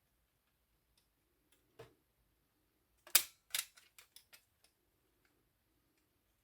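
Metal clicks from an Olivetti Lettera 22 typewriter's mechanism being worked by hand. A dull knock comes about two seconds in. About three seconds in come two loud, sharp clicks half a second apart, followed by a quick run of lighter clicks.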